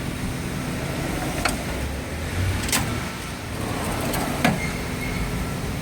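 Tools and toolbox drawers being handled: three sharp clicks and knocks spread over several seconds, over a steady background hum.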